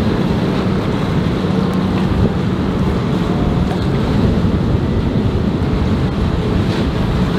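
Yamaha outboard motor of a passing center-console boat running, heard as a steady hum that fades after about three seconds, under heavy wind noise on the microphone and the wash of water.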